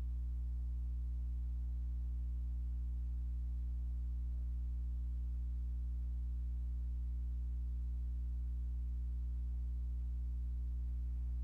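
Steady low electrical hum with a row of evenly spaced overtones, unchanging throughout: mains hum picked up by the recording setup.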